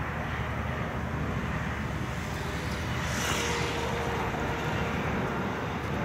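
Boeing 747-8's four jet engines at taxi power: a steady rumble with a faint whine, and a brief swell of hiss about three seconds in.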